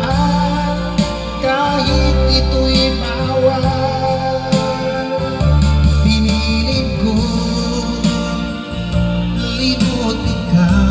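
A song with a singing voice and a heavy bass line, played loud through an 800-watt sound system under test. The bass notes are held for a second or two each as they change.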